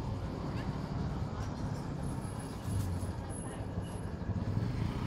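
Outdoor street ambience: a steady low rumble of passing traffic with faint voices in the background.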